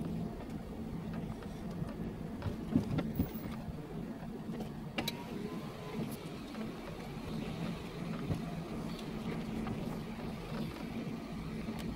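Car engine running at low speed, heard from inside the cabin as a steady hum, with a few knocks and rattles about three seconds in.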